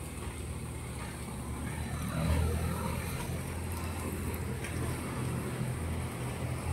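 A motor vehicle engine running steadily, a low rumble that grows louder about two seconds in.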